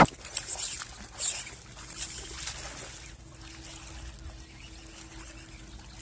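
A hooked bass splashing at the water's surface during the fight, with a sharp crack right at the start; the splashing is busiest in the first three seconds, then dies down.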